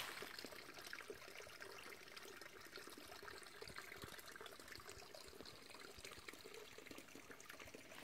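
Faint, steady trickle of running water, like a small stream, with a fine crackle and no distinct events.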